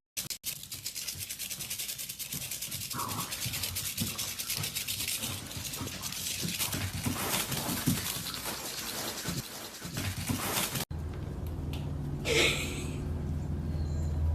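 A dog panting fast and steadily for about ten seconds, then it cuts off suddenly and a low steady hum follows.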